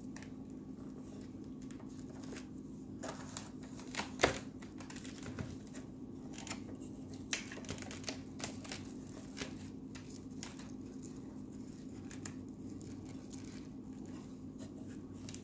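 Hands fastening Velcro hook-and-loop straps around an RC airboat's hull and frame: scattered soft rustles and small clicks, with a sharper click about four seconds in. A faint steady hum runs underneath.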